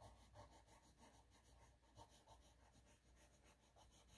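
Faint pencil strokes on paper: quick, short scratches, several a second, as fur is sketched in.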